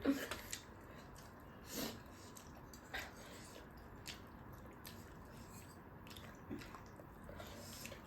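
Faint chewing and mouth sounds of someone eating, with a few soft clicks and smacks spread through.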